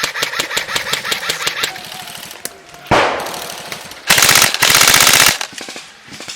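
Airsoft electric guns firing on full auto: a rattling burst of about eight shots a second for the first second and a half, a single sharp crack about three seconds in, then a louder, faster burst lasting just over a second.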